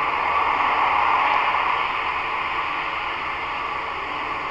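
Steady hiss like radio static, a little stronger about a second in and then easing off.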